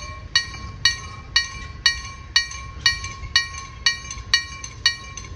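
Level-crossing warning bell of an EHZ-13 crossing installation, striking steadily about twice a second with each stroke ringing on. The strokes stop near the end.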